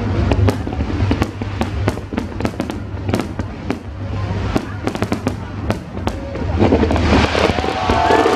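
Aerial fireworks going off in a rapid string of sharp bangs and cracks. A dense crackling hiss builds up near the end.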